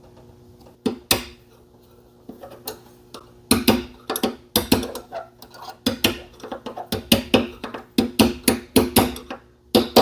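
Irregular sharp metal taps and knocks from hand tools working on the crankshaft seal of a Briggs & Stratton 3.5 hp engine, a few at first and then several a second from about three and a half seconds in, under a faint steady hum.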